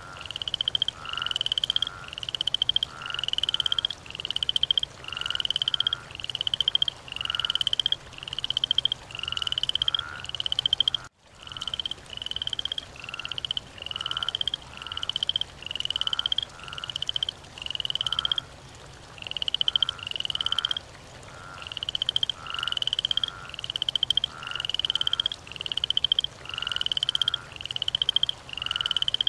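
A frog croaking over and over: a short, rattling call that rises in pitch, repeated in a very even rhythm about once a second. The sound cuts out for a moment about eleven seconds in.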